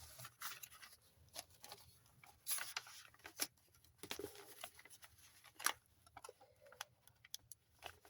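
Paper pages of a handmade junk journal being turned and handled: scattered faint rustles and light clicks, with a few louder rustles.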